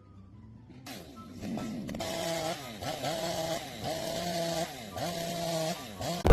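A small motor running with its pitch dipping and climbing back again about once a second, as if repeatedly loaded and released.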